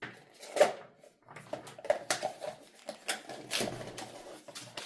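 Blind-box packaging being handled and opened: irregular rustling, crinkling and small taps of cardboard and plastic wrap.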